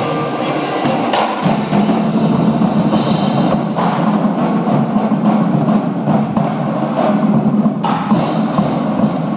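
Winter drumline (indoor percussion ensemble) playing a dense, continuous passage of drums and percussion.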